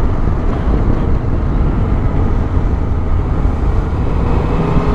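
Yamaha motorcycle being ridden at road speed: wind rushing over the camera microphone on top of the engine's steady running, with the engine note rising slightly near the end.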